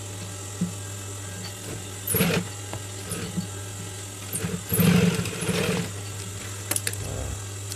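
Industrial sewing machine stitching fabric in short runs: a brief burst about two seconds in and a longer one around five seconds, over a steady low hum, with a few light clicks near the end.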